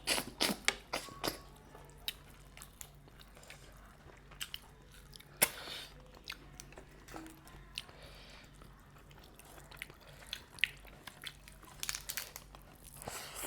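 Crab being eaten by hand: scattered sharp cracks and clicks of shell being broken and picked apart, with chewing between them. The loudest crack comes a little past the middle.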